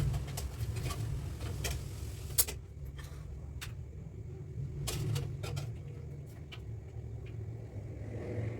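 Kitchen cooking noise: a steady low rumble with scattered sharp clicks and ticks, one louder click about two and a half seconds in.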